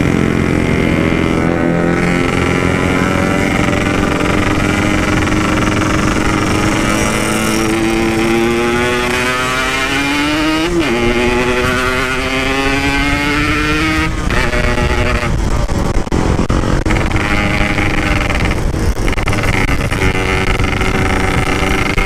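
Yamaha RX-King 135 cc two-stroke single running through its standard-style Packing Power exhaust while riding. It revs up steadily through the gears, with a brief break about 11 seconds in and a sharp drop in revs about 14 seconds in, then runs more evenly. This is a bike the rider says is badly tuned and falls flat around 10,000 rpm, which he suspects is a dying spark plug.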